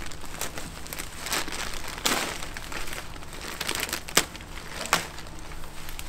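Black plastic bag liner crinkling and potato foliage rustling as the plant tops are pulled out of a compost grow bag, with a louder rustle about two seconds in and sharp clicks about four and five seconds in.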